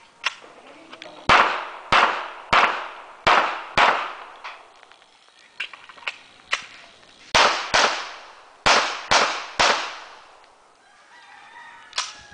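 Pistol shots in two fast strings of five, each shot a sharp crack with a short echo, about half a second apart. A pause of about three seconds separates the strings, with a few fainter clicks in between.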